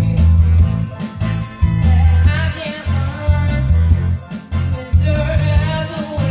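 Karaoke singing: a woman's voice through a microphone over a backing track with a steady, pulsing bass beat.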